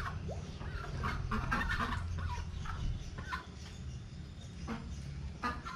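Chickens clucking in short, scattered calls, over a steady low background hum.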